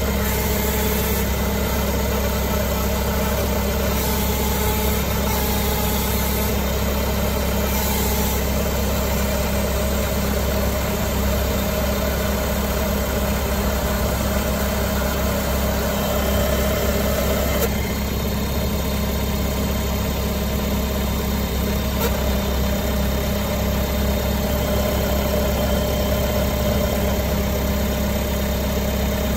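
Tracked vehicle's engine idling steadily just after being started, a constant low hum whose tone shifts slightly about 18 seconds in.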